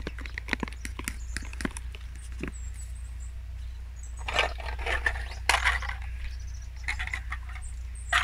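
A metal fork whisking thick batter in a plastic tub, clicking quickly against the sides for about the first two seconds. After that come a few louder scuffing and rustling handling sounds.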